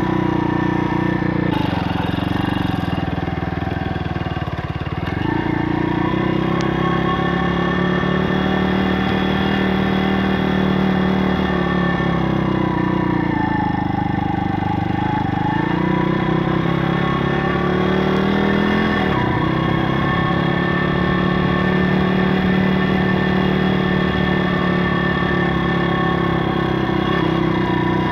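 A Stomp pit bike's YX 160cc single-cylinder four-stroke engine running on the move. Its note drops and climbs back a few times as the throttle is eased off and opened again, most deeply about two to five seconds in and again around the middle.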